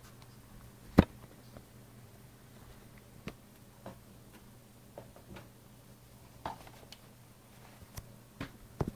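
Handling noise from a handheld camera: scattered light clicks and knocks, the sharpest about a second in, with a faint steady low hum underneath.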